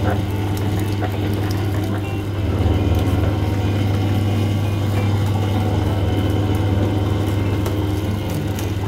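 Electric sugarcane juice press (trapiche) running steadily with a constant low motor hum as sugarcane stalks are fed through its rollers, with scattered clicks of cane being crushed.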